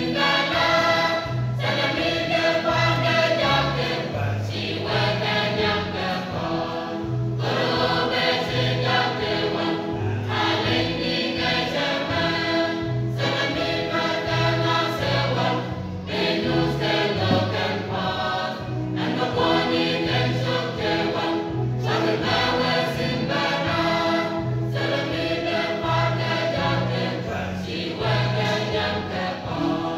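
Mixed choir of men and women singing together, with a strong low bass line moving under the upper voices.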